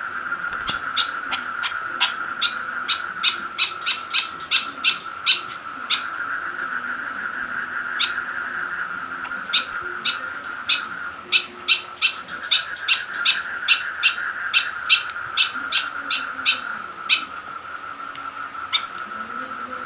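White-breasted woodswallow (kekep babi) giving runs of short, sharp calls, about two to three a second, with a pause in the middle. A steady high-pitched drone runs underneath.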